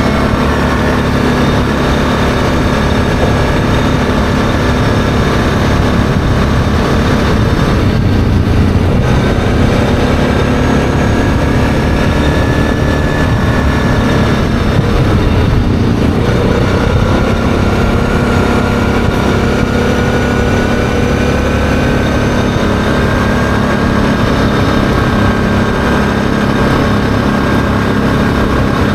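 ATV engine running steadily at road speed. The engine note drops briefly twice, about eight and fifteen seconds in, then picks up again.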